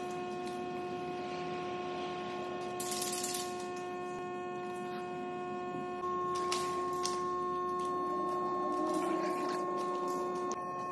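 Short hisses of an aerosol spray-paint can, a few times, over a steady hum of several tones.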